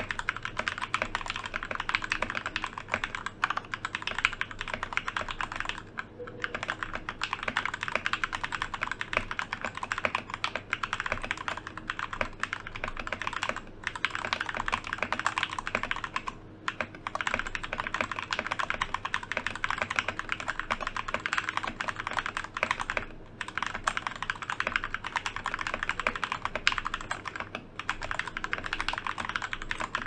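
Continuous fast typing on a Royal Kludge RKG68 mechanical keyboard fitted with Gateron Milky Yellow linear switches: a dense run of keystrokes, broken by a handful of brief pauses.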